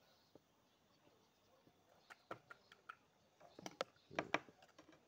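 Faint, scattered clicks and light taps of a 12-bore shotgun shell and small reloading tools being handled on a wooden table, starting about two seconds in and bunching into a cluster of knocks near the end.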